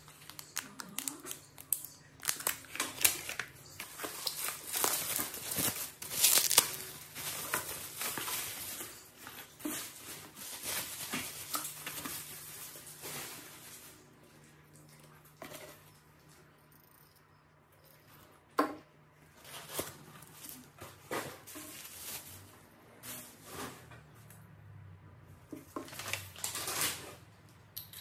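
Plastic bags and cardboard packaging being crinkled and handled as items are unpacked: a run of rustles and small knocks that thins out about halfway through, then picks up again near the end.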